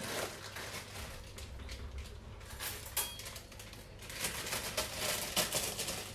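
Scattered light clicks and clinks with the rustle of a plastic food packet being handled at a kitchen sink, a sharper click about three seconds in and a busier run of clicks in the second half.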